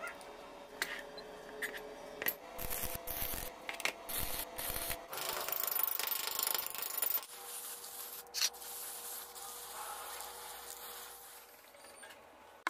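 Steel rod and hand tools worked by hand: metal scraping and clinking, with a run of sharp taps in the first half and a longer scrape just after.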